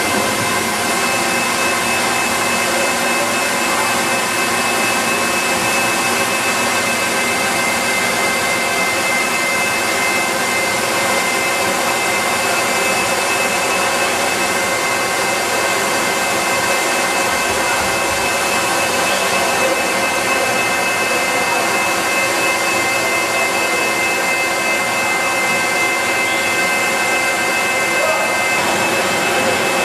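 Steady din of factory process machinery, electric motors and pumps running continuously, with a constant high whine over the running noise.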